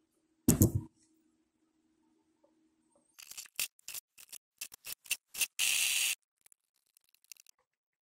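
Plastic lid of a Beautiful 14-cup drip coffee maker knocking shut, followed by a faint steady hum. About three seconds in comes a fast run of clicks and crackles ending in a half-second hiss: the drip brew cycle played back sped up 20 times.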